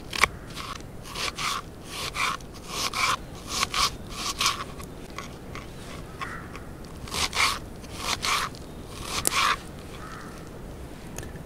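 Kitchen knife slicing a red onion on a wooden cutting board: a string of short cutting strokes in an uneven rhythm, about one every half second to second, the blade knocking on the board now and then. The cutting stops about three quarters of the way through.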